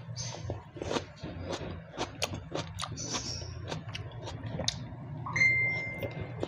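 Close-up mukbang eating sounds: a person chewing with irregular wet mouth clicks and smacks over a steady low hum. Near the end a clear, steady high tone sounds for about a second.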